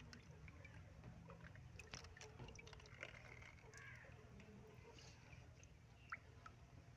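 Faint trickling and dripping of water from a squeezed water balloon into a plastic tub of water, over a low hum, with one small sharp tick about six seconds in.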